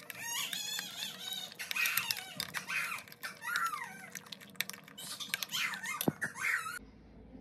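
Metal spoon squeaking and scraping against a glass bowl while stirring a thick spice paste, a run of short squeaks with sharp clicks of the spoon on the glass. The sound cuts off suddenly near the end.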